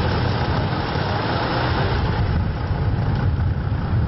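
A car's engine and tyres running steadily, with a deep low rumble underneath.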